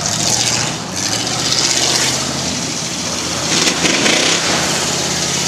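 Off-road competition truck's engine running hard and revving as it races over a dirt course, with rushing hiss from loose dirt being thrown up.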